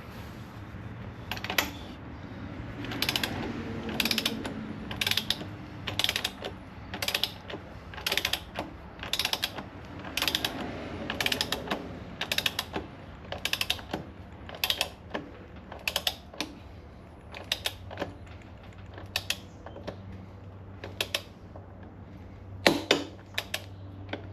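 Ratcheting torque wrench tightening a Harley-Davidson Dyna's rear axle nut. Its pawl clicks in short bursts about once a second, one burst per swing of the handle.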